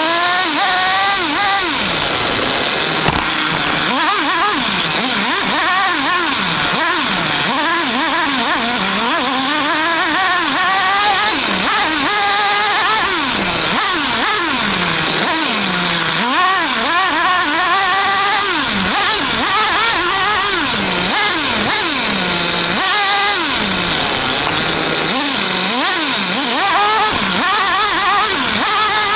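Small nitro engine of a 1/8-scale RC monster truck revving up and falling back over and over as it drives, over a steady rattling hiss.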